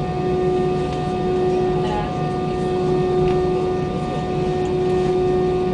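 Airbus A320 jet engines heard from inside the cabin: a steady hum under a constant, even whine that does not rise or fall.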